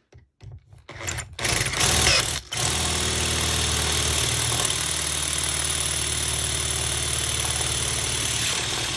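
Electric drill running as its bit bores along the shear line of an Ultion 3-star euro lock cylinder, cutting through the pin chambers. It starts about a second in, stops briefly, then runs steadily.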